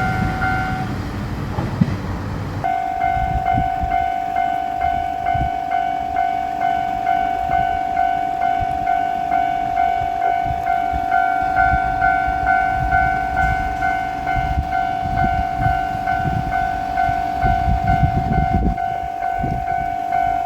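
Japanese level crossing warning bell ringing its steady two-tone "kan-kan", just under two strikes a second. It stops under a second in, starts again about two seconds later and keeps ringing over a low rumble.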